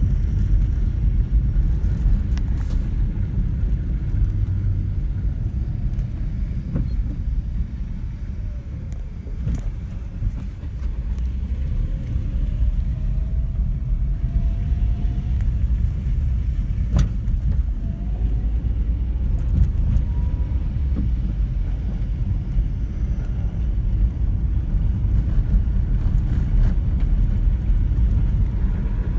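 Inside a car's cabin while it drives along an unpaved dirt road: a steady low rumble of tyres and engine, with a few brief knocks.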